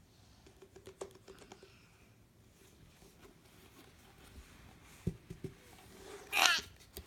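Scattered light clicks and taps of small objects being handled, then about six seconds in a short high squeal from a young child.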